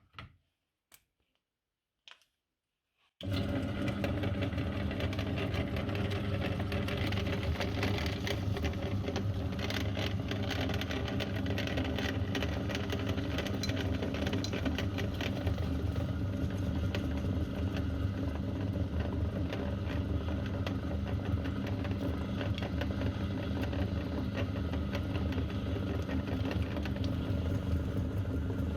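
A few clicks, then about three seconds in an electric meat grinder switches on and runs steadily, its motor hum overlaid with a dense crackle as it grinds chocolate candies.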